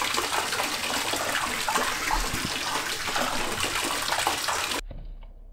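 Water running from a tap into a wooden outdoor bathtub, a steady splashing rush that cuts off abruptly near the end.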